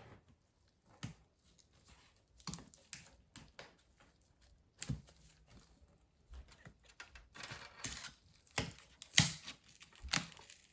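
Irregular clicks, scrapes and crackles of a tool prying a MacBook Pro's glued-down battery cells off the case, sparse at first and coming thicker and louder in the second half.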